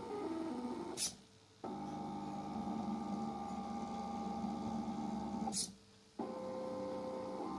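Stepper motors of a homemade AxiDraw-style pen plotter whining in shifting tones as it moves. The whine stops twice for about half a second, with a short high click at the start of each stop.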